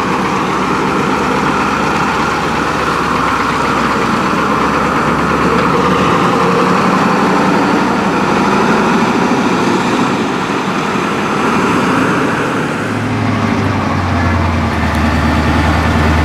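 The engine of a 1987 Ford C-Series garbage truck running steadily as the truck moves off. Near the end it turns into a deeper, steady drone as heard from inside the cab.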